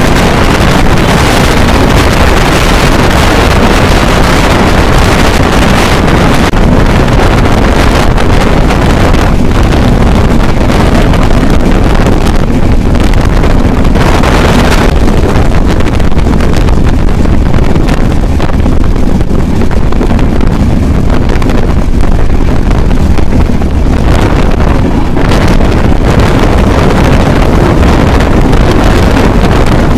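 Loud, steady wind buffeting the microphone held out of a moving passenger train's window, over the low rumble of the train running along the track.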